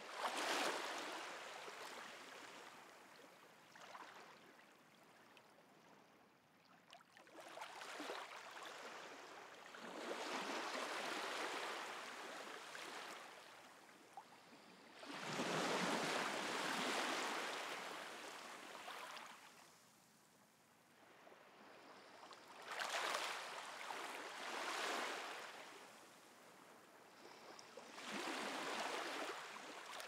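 Small sea waves lapping and washing onto a shallow shore, each wash swelling and fading away at irregular intervals of a few seconds, the biggest about halfway through.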